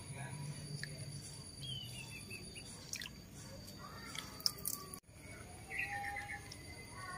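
Outdoor ambience of birds chirping in short quick runs of repeated high notes, with a few small splashes and drips of water from baby macaques sitting in a plastic basin.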